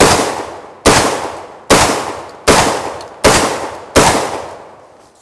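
12-gauge semi-automatic tactical shotgun firing buckshot: six shots in quick succession, about 0.8 s apart, each followed by a decaying echo. The gun cycles every round without a hitch, running like a top on buckshot.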